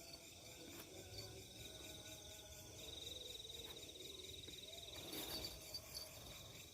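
Night insects, likely crickets, trilling steadily at a high pitch, growing louder about three seconds in.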